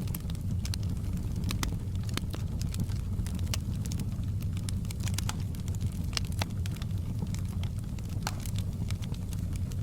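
Wood fire burning in a fireplace: a steady low rumble of the flames with frequent irregular sharp crackles and pops.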